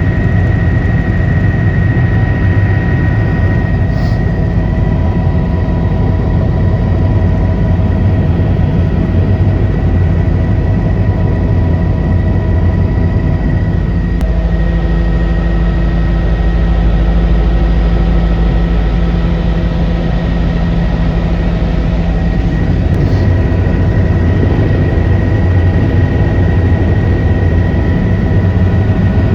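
Helicopter engine and rotor running steadily: a heavy low rumble with a steady high whine over it.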